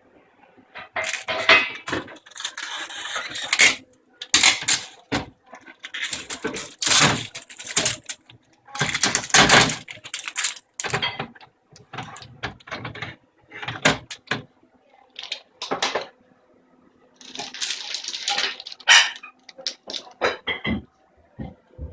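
Packaging on a fridge-freezer being handled and pulled at: irregular bursts of crinkling, scraping and clattering with short pauses between them.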